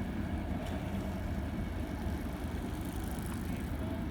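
Steady low rumble of a train running past on the line.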